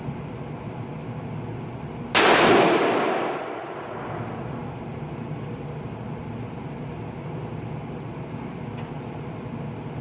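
A single gunshot about two seconds in, sharp and loud, with an echoing tail that dies away over about a second and a half, heard over a steady low rumble.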